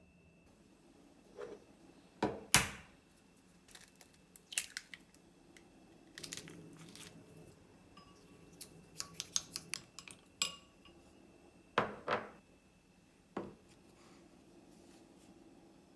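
Kitchenware being handled: dishes and utensils clinking and knocking. There are a few sharp knocks, the loudest about two and a half seconds in and again near twelve seconds, and a quick run of small clinks around nine to ten seconds.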